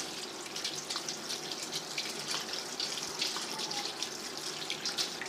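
Cold water pouring and splashing over boiled macaroni in a steel colander, rinsing the drained pasta so it won't stick together. It runs steadily with a patter of small splashes.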